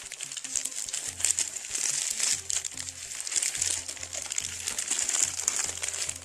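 Paper food wrapper crinkling and rustling as it is handled, continuous throughout, over background music.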